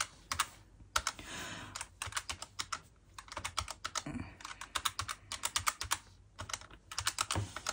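Plastic keys of a desktop calculator being pressed by fingertip in quick irregular runs of clicks, as figures are tapped in and added up.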